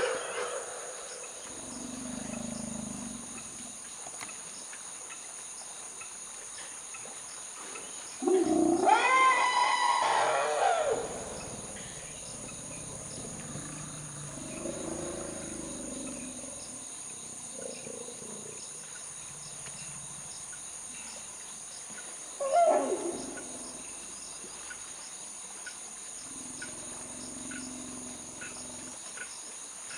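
Forest elephants calling: a loud, high, scream-like call rises and falls over about two and a half seconds, about eight seconds in, and a shorter falling call comes about 22 seconds in, with a few quieter low calls between. A steady high insect drone runs underneath.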